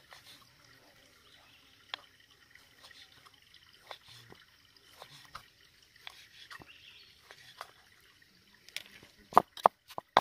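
Light scattered clicks and a faint trickle of water during kitchen work. Near the end comes a quick run of sharp knocks, about three a second: a knife chopping on a cutting board.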